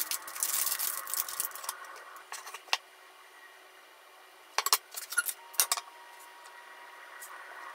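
Plastic food packaging crinkling for about two seconds, then scattered sharp clicks and taps of a knife and chopsticks on a wooden cutting board.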